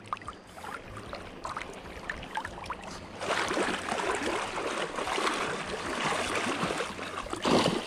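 Shallow water splashing and sloshing as a hooked orange-spotted trevally is drawn through the wash onto the sand. Faint ticks at first, then steady splashing from about three seconds in, with a louder splash near the end.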